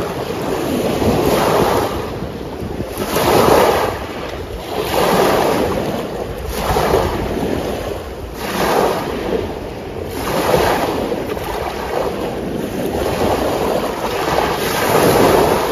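Small lake waves washing in and breaking on a pebble shore, a swell of wash about every two seconds, with wind rumbling on the microphone.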